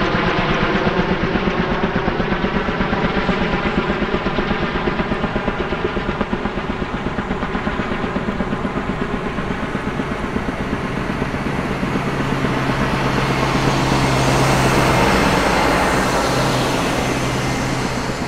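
Kaman K-MAX K-1200 helicopter in flight, its turboshaft-driven intermeshing twin rotors beating in a fast, steady rhythm. A steady low hum joins about halfway through, and the sound swells louder about two-thirds of the way in.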